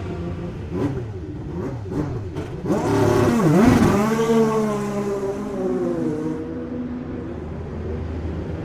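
IndyCar race car engine at high revs. Partway through, the pitch swoops down and back up sharply as the car is revved hard at a pit stop, then it pulls away with a steady note that slowly falls.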